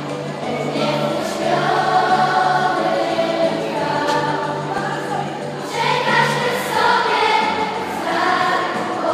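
Children's choir singing a Christmas carol, with a low steady note held beneath the voices.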